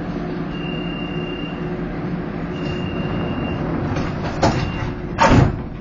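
Steady running hum inside a SkyTrain suspended monorail car, with two high beeps about a second long in the first half. A couple of clicks follow, then a heavy thump near the end, the loudest sound.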